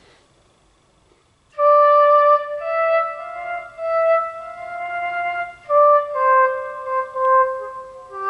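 Electric guitar played through a guitar synthesizer set to a woodwind voice. After about a second and a half of quiet, it plays a slow melody of sustained single notes.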